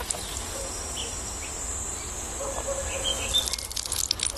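A steady high insect trill for most of the clip, with a few faint bird chirps. Near the end a run of sharp crackling clicks starts.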